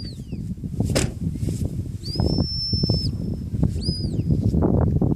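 Shepherd's whistle commands directing a working sheepdog on the drive: the falling end of one whistle, a long level whistle about two seconds in, and a short rising-and-falling whistle near the end. A sharp click comes about a second in, over a steady low rumbling noise.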